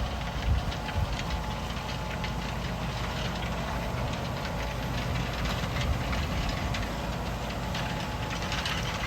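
Tractor diesel engine running steadily under load, with a constant rattling and clattering from the cultivator working the stubble.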